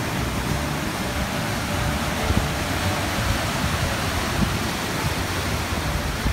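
Fast mountain stream rushing over rocks in whitewater: a steady rush of water.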